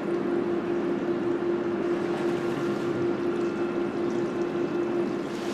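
Steady hum of an industrial dip-tank plant: one constant mid-low tone over an even, rushing noise.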